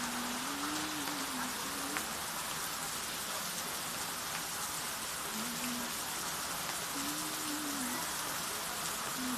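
Steady rain falling on roofs, wet surfaces and floodwater: an even hiss, with a few faint, short, low wavering tones now and then.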